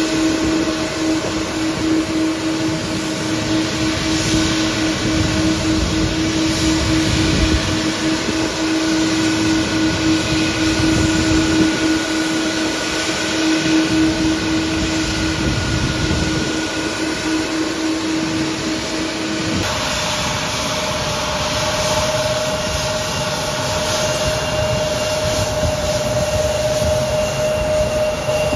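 Jet airliner engines running on a rain-wet apron: a steady hum with one held tone over a constant hiss. About twenty seconds in the sound changes abruptly to a different, higher steady tone from a second aircraft, a taxiing Embraer 170 regional jet.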